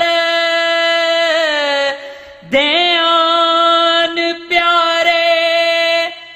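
A man singing Sufi kalam unaccompanied, holding long drawn-out notes. Near the middle the note slides down and breaks off briefly, then a new note rises in and is held.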